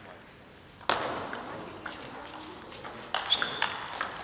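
Table tennis rally: the ball clicking sharply off the bats and the table in quick alternation, starting about a second in. A brief high squeak about three seconds in.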